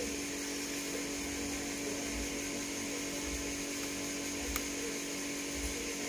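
A steady hum with an even hiss, and one faint click about four and a half seconds in.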